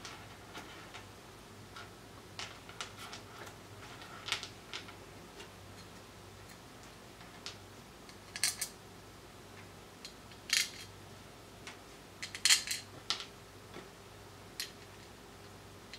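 Small metal screws and brass standoffs clicking and clinking as they are picked up and set down on a cutting mat and handled against a circuit board: scattered light clicks, with a few sharper ones clustered near the middle and toward the end.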